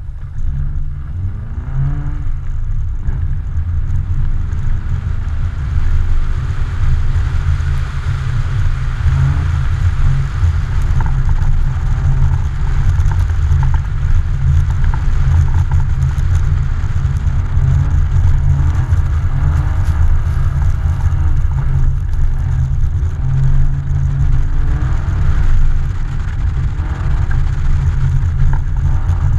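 Car engine revving up and down again and again as the car slides on ice, heard from a camera mounted outside the car, under a heavy steady low rumble.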